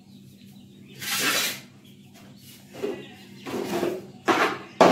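A series of short, rough scraping sounds, about five, irregularly spaced. The last one comes suddenly near the end and is the loudest. A steady low hum runs underneath.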